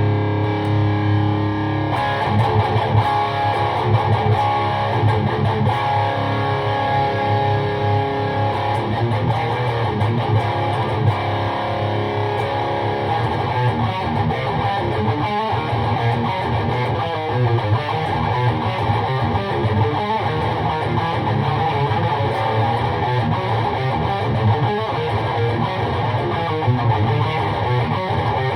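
Electric guitar, a Jackson DKM2 with Seymour Duncan JB pickups, played continuously through a PRS MT-15 V2 tube amp into an ENGL 1x12 cabinet with a Celestion Vintage 30, heard in the room. It holds notes at first, then shifts to busier riffing about two seconds in.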